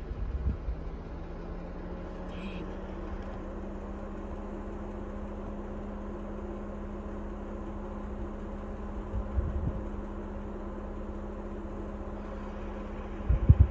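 Vehicle engine running steadily at low speed on a dirt road, heard from inside the cab as a constant hum over low road rumble, with a few light knocks about two-thirds of the way in and louder ones near the end.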